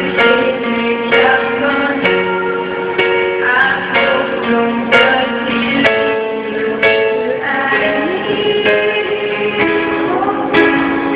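Two women singing a song into handheld microphones, with their voices holding long notes over a plucked-string accompaniment that strikes about once a second.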